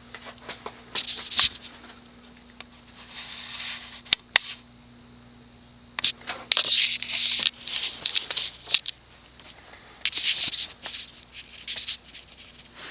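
Casablanca Capistrano ceiling fan's cast aluminum 188x20 mm spinner motor running on low with an ever so slight hum. Several louder bursts of rustling and sharp clicks come and go over it.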